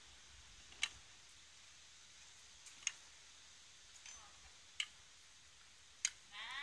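Rosehips dropped by hand into the clear plastic feed chute of an electric juicer, each landing with a sharp tick: four ticks about two seconds apart.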